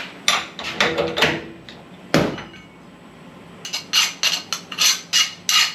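Metal parts and tools being handled on a workbench: a series of sharp metallic knocks and clinks. A few come in the first second and a louder one about two seconds in, then a quick run of about eight clicks near the end, some ringing briefly.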